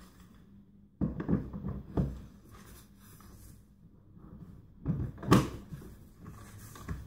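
Plastic knocks and clicks of a Camarelo Baleo Shine pram carrycot being set down and locked onto its stroller frame about a second in, followed by rustling handling and a sharp snap of the fittings about five seconds in, the loudest sound.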